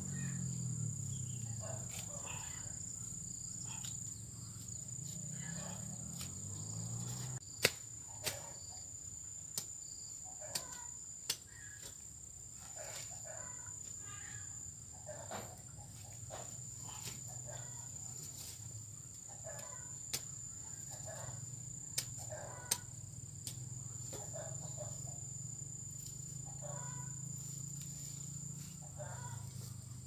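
Insects keeping up a steady high-pitched drone over a low steady hum, with a handful of sharp knocks scattered through: a cluster about eight to eleven seconds in and a few more past twenty seconds.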